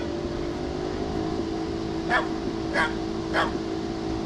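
A dog barking three times in quick succession, each bark short and sharp, over a steady hum.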